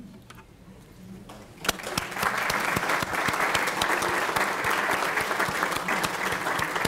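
Audience applauding: a quiet pause, then dense clapping from a roomful of people that starts about a second and a half in and thins out near the end.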